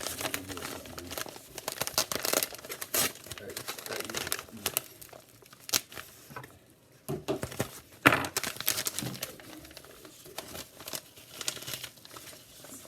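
Shipping packaging being torn open and crinkled by hand, in irregular rustling bursts that are loudest about two to three seconds in and again around eight seconds in.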